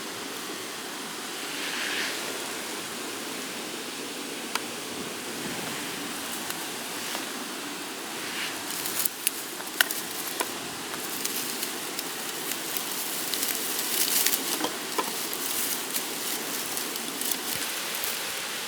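Steady rain, with scattered sharp ticks and crackles that come more often from about halfway through.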